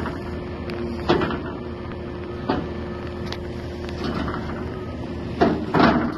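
Wheel loader's diesel engine running steadily while its forks push a pickup truck along a steel car-hauler trailer deck, with several sharp metal knocks and clanks, the loudest two near the end.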